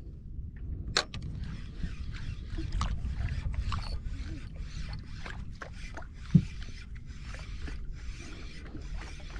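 Spinning reel wound in short, even strokes as a cast jig is worked back, over a steady rumble of wind and water around a small boat. A sharp click comes about a second in, and a dull thump a little past the middle.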